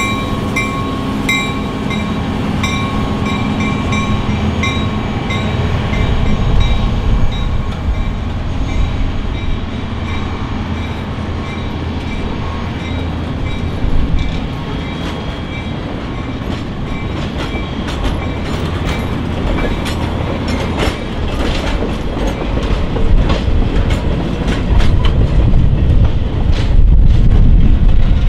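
Passenger train passing close by: the diesel locomotive's hum and its bell, ringing steadily, fade over the first few seconds. Then the passenger coaches roll past with a rumble and wheels clacking over the rail joints, loudest near the end.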